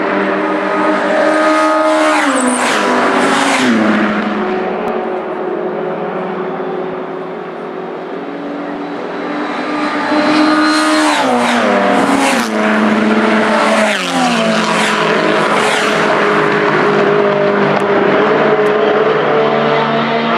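Classic racing cars passing at speed, several one after another. Each engine note falls in pitch as the car goes by, with a lull in the middle before another group of cars passes.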